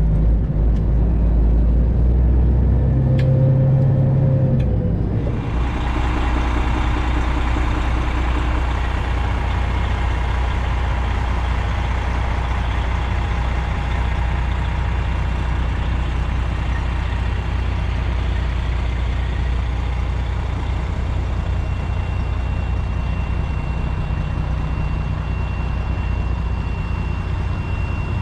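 Freightliner Classic XL semi truck's diesel engine running at low speed while the rig is manoeuvred into a loading dock. About five seconds in, a steady hiss joins the engine and continues.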